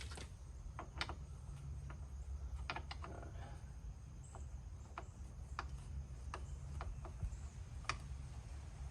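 Irregular sharp metallic clicks and clinks, about one a second, as a wrench works a pedal being threaded into an e-bike crank arm, over a steady low hum.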